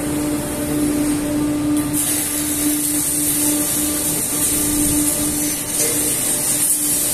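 Steady hum of workshop machinery, one constant tone, with a loud high hiss joining about two seconds in.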